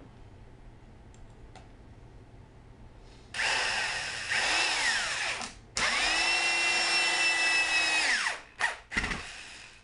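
Corded electric drill driving long wood screws through PVC pipe into a landscape timber: two runs of motor whine a couple of seconds each, the second one winding down at its end, then two short blips of the trigger near the end.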